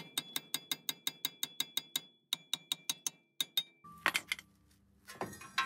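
A hammer tapping rapidly on a rusted cast-iron brake rotor of a 1976 Porsche 914, about seven light blows a second with a metallic ring, pausing twice. The taps are meant to free the rotor where rust holds it seized on the hub. A single louder clank comes about four seconds in, then some clatter near the end.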